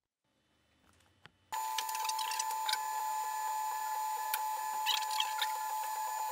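Near silence, then about a second and a half in an UP Plus 2 3D printer starts printing, heard at eight-times speed: a steady high hum with quick bursts of high chirping from the print-head motors.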